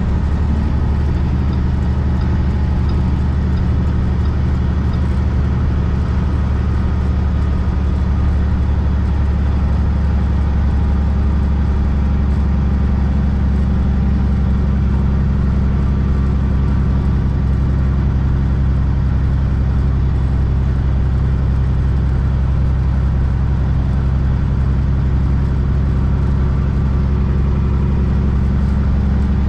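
Semi truck's diesel engine droning steadily at cruising speed, heard from inside the cab as a constant low rumble.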